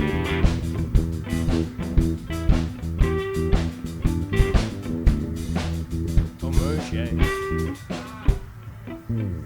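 Background music: bluesy rock with electric guitar, bass and drums, cutting off just before the end.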